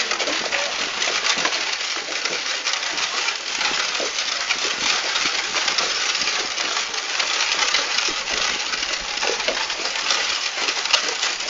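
Horse-drawn cart on the move: a steady clatter and rattle of the cart and its wheels over the road, full of small clicks and clinks.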